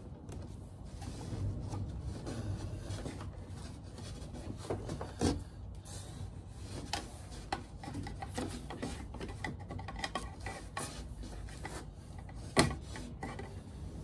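Twin-and-earth cable being pulled through a hole in a plasterboard ceiling and fed down to a switch box: the PVC sheath rubs and scrapes, with a few sharp knocks, the loudest near the end.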